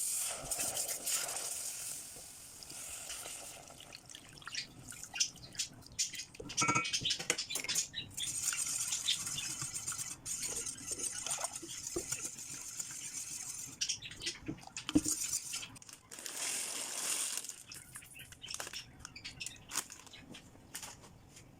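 Cooking in a pan: a utensil clinking and knocking against the pan, with long stretches of hissing noise in between.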